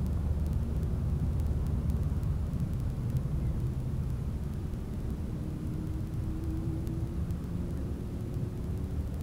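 Steady low rumble of road traffic from a nearby highway, with a faint drawn-out hum from about four seconds in.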